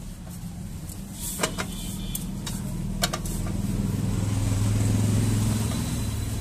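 A vehicle engine running, a low hum that swells to its loudest about five seconds in and then eases off, with a few sharp clicks in the first half.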